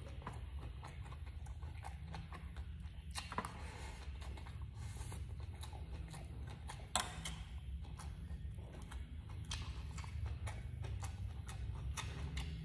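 A person chewing food close to the microphone: irregular wet mouth clicks and a few sharper bites, about 3.5 and 7 seconds in, over a steady low hum.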